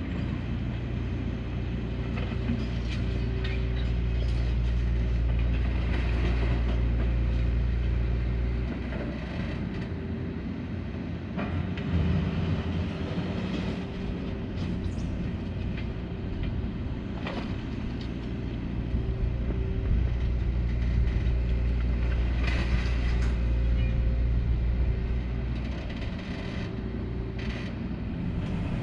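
Hyundai 235 excavator's diesel engine running under hydraulic load, its low note easing about nine seconds in and picking up again a few seconds later, with scattered clanks and creaks from the working bucket and arm.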